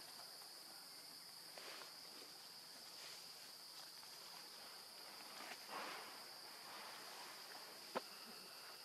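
Faint, steady, high-pitched insect drone, like crickets or cicadas, with a short rustle about six seconds in and a single sharp click near the end.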